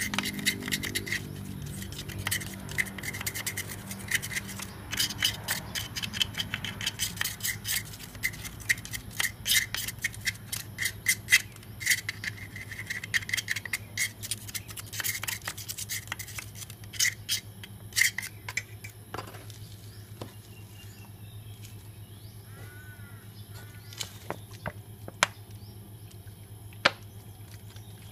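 Scrubbing and scraping on a Yamaha Mio scooter's final-drive gear case cover, cleaning caked dirt off with gasoline: rapid rubbing strokes and clicks that stop about 18 seconds in, leaving only occasional clicks over a steady low hum.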